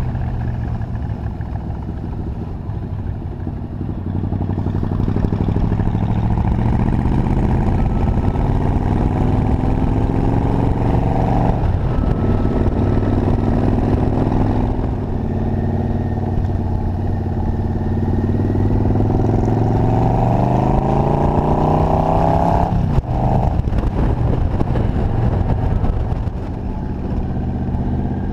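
Yamaha Royal Star XVZ1300's V4 engine under way, the note climbing in pitch as it accelerates through the gears. It drops back sharply at the shifts, about twelve seconds in and again about twenty-three seconds in.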